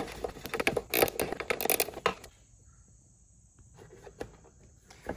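Ratcheting wrench clicking as it turns out an 8 mm bolt, with metal taps. The clicking stops about two seconds in, leaving only faint handling ticks.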